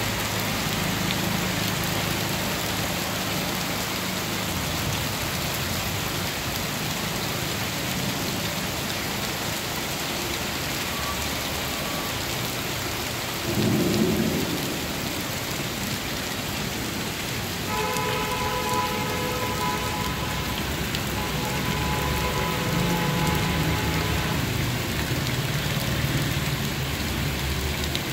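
Heavy rain mixed with small hail pellets pattering on wet paving and grass, with low thunder rumbling under it. A brief, louder low rumble comes about halfway through.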